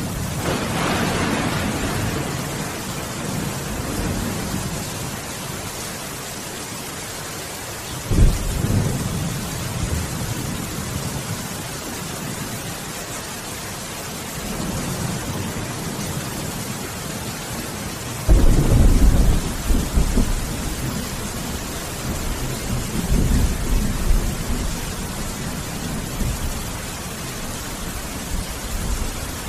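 Steady heavy rain with thunder rumbling through it. Two claps start suddenly about eight seconds in and again past halfway, the second the loudest, each rolling off into a long low rumble.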